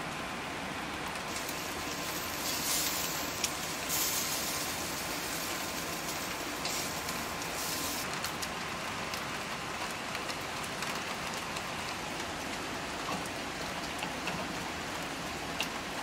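Steady rain falling: an even hiss with a few small ticks of drops.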